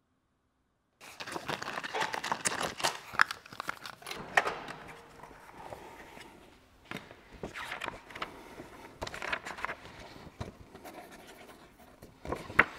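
Handling noises starting about a second in: scattered rustles, scrapes and clicks as rubber insulating gloves are set down and a plastic folder is picked up and handled at a tool trolley.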